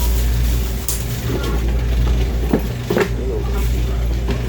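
Steady low hum with a few light clicks and clinks, like small metal parts or tools being handled on a workbench.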